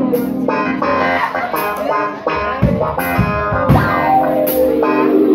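Live band playing: electric guitar chords over bass guitar, with short cymbal hits, and no singing.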